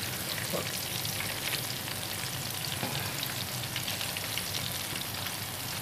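Battered chicken pakoras deep-frying in hot ghee: a steady sizzle with dense fine crackling.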